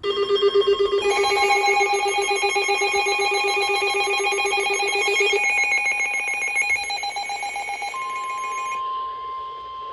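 Several weather alert radios sounding their alarms at once, a stack of pulsing beeping tones at different pitches, set off by a special marine warning. About eight seconds in, the alarms drop away and a single steady NOAA Weather Radio warning alert tone takes over.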